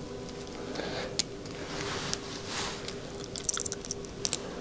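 Fingers handling small 3D-printed polycarbonate–carbon fiber idler parts and a small screw: soft rustling and light plastic clicks, with a quick run of sharp ticks in the last second or so. A steady low hum sits underneath.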